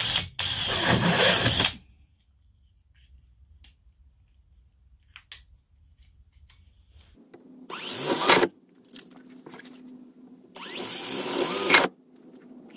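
Cordless drill boring ventilation holes through a corrugated plastic (coroplast) body panel, in three short runs: one at the start, a brief one about eight seconds in and another near eleven seconds.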